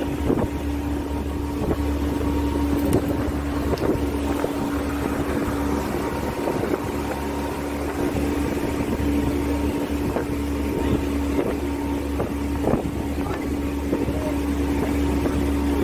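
Passenger boat's inboard engine running steadily, a constant hum with a low drone beneath, with wind buffeting the microphone.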